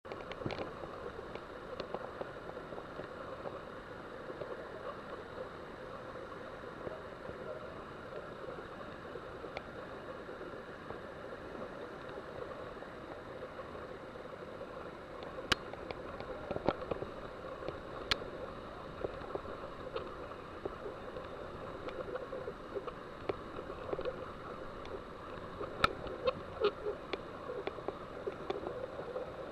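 Seawater surging and gurgling through a rocky grotto, a steady rushing sound, with scattered sharp clicks and knocks in the second half.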